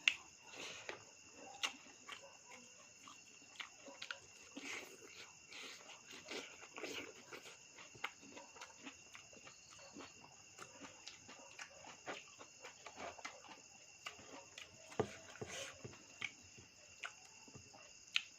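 Close eating sounds: irregular wet clicks and smacks of chewing, over a steady high chirring of crickets or other insects.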